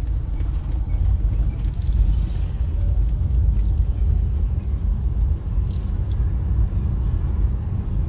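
Steady low rumble of a moving car, engine and road noise heard from inside the cabin.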